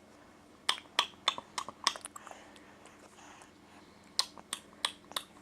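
A baby making sharp clicking, squeaky noises with her gums and mouth, in two runs of quick clicks a few seconds apart.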